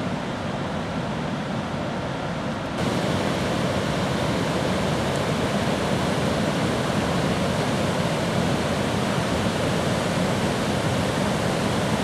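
Athabasca River rushing over rapids: a steady whitewater rush that gets louder and brighter about three seconds in.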